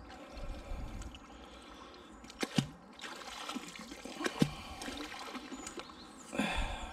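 Water trickling and splashing as a fishing magnet on its rope is hauled up out of the canal, with two sharp clicks partway through and a louder rush of water near the end.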